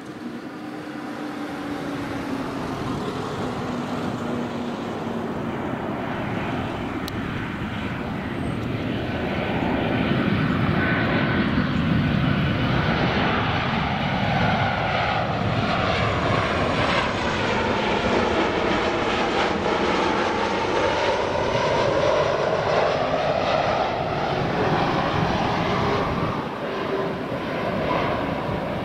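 Boeing 737-800 jet airliner on final approach with its landing gear down, its engines growing louder over the first ten seconds as it comes in and passes overhead. A sweeping, phasing tone runs through the noise as it goes by.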